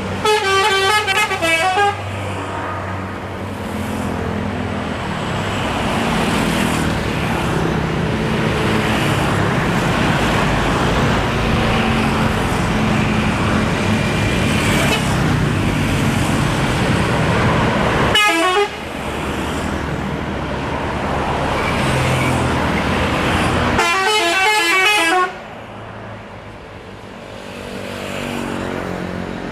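Bus 'telolet' horns, multi-tone air horns, playing quick stepping tune phrases: one in the first two seconds, a short burst about two-thirds of the way through, and another a little before the end. Between them is the steady running of the buses' engines as they pull away.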